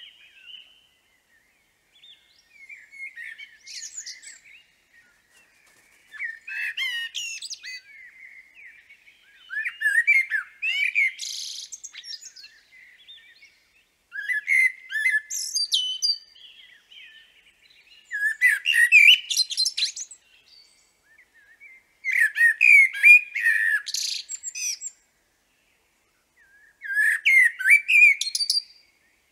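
Common blackbird singing: seven phrases a few seconds apart, each a low fluting warble that breaks into a high squeaky twitter. The first phrase is fainter than the rest.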